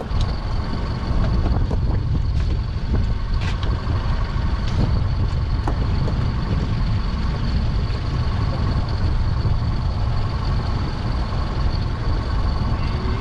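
Strong wind rumbling on the microphone over the steady hum of a boat's motor, which carries a thin high whine.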